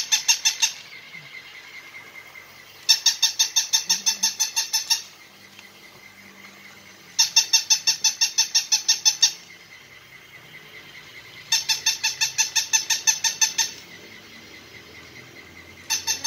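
Battery-powered walking plush toy puppy playing its electronic bark: a rapid, even train of high-pitched yips, about six a second, lasting about two seconds and repeating about every four seconds, four times, with a fifth starting near the end. Between the bursts only a faint steady hum.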